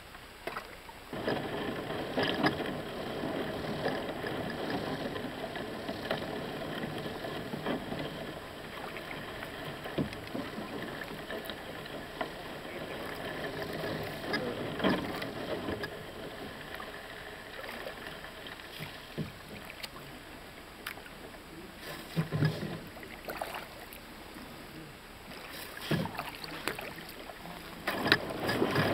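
A wooden canoe paddle dips and pulls through calm lake water, making stroke after stroke of swishing and splashing with drips. A few sharp knocks come through the water sound.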